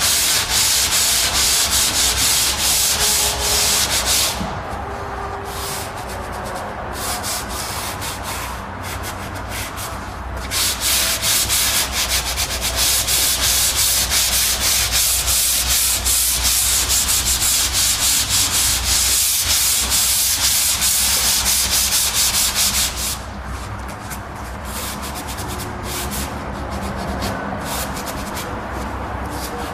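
Hand sanding of a plaster wall around the opening for a recessed wall light, with fast back-and-forth scratchy strokes of sandpaper. The strokes are hard and continuous for the first four seconds and again from about ten to twenty-three seconds, and lighter and broken in between and near the end.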